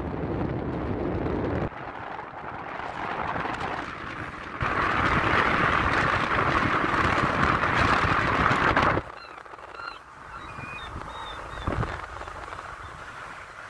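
Outdoor ambience that changes abruptly several times: a low rumble at first, then a loud steady rushing noise in the middle that stops suddenly, then a few short bird calls in the quieter last part.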